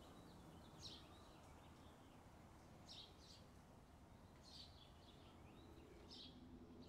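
Faint short bird chirps, four of them spaced roughly a second and a half apart, over near silence.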